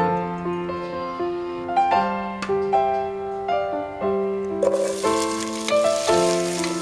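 Gentle piano background music. About two-thirds of the way through, chopped onion drops into hot oil in a pot and starts sizzling steadily under the music.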